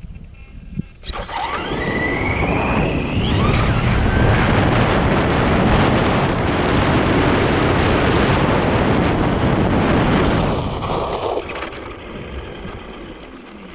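Traxxas RC truck accelerating, heard from a camera mounted on the truck. About a second in, a motor whine rises in pitch. Then comes a loud, steady rush of tyre and wind noise for several seconds, which dies down near the end.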